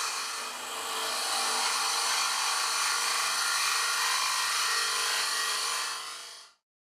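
A Robert Sorby TurnMaster's titanium-nitride-coated high-speed-steel mushroom cutter hollowing the inside of a wooden bowl spinning on a lathe: a steady high hiss of the cut over a faint steady hum. It stops suddenly near the end.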